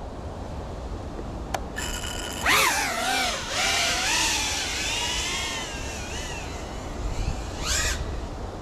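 Small ducted cinewhoop FPV drone's motors and propellers whining as it takes off and flies, the pitch swooping up and down with the throttle, loudest about two and a half seconds in. A sharp click about a second and a half in, and a low wind rumble on the microphone underneath.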